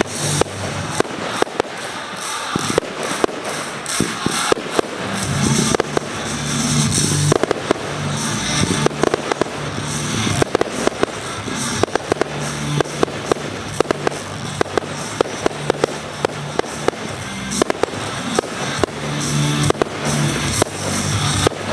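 Fireworks going off in rapid succession, many sharp bangs and crackles, over music playing.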